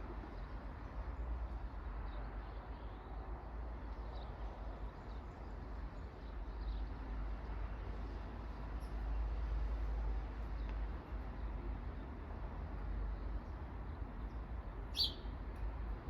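Outdoor ambience: a steady low rumble and hiss, with faint scattered bird chirps and one louder, short chirp near the end.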